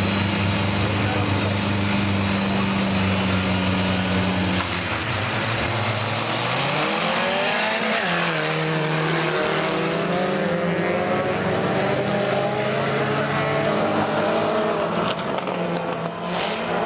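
A grid of folkrace cars holding their engines at steady revs on the start line, then launching together about four and a half seconds in: several engines rise in pitch as they accelerate away and keep running hard as the pack races off down the track.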